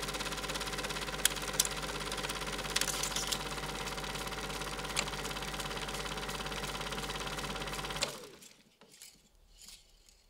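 A Super 8 film projector running: a steady mechanical whirr with a low mains hum and a few sharp clicks, stopping about eight seconds in.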